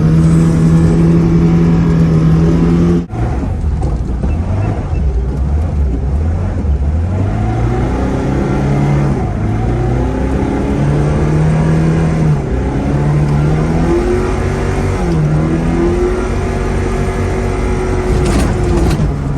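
Zhiguli car engine revving under drifting. Its pitch is held high for about three seconds, breaks off sharply for a moment, then rises and falls again and again as the throttle is worked, heard from inside the cabin.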